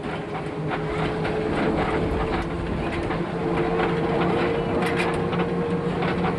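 Vintage electric tram running along the track, its motors giving a steady hum over the rumble of the wheels, with scattered clicks from the rails.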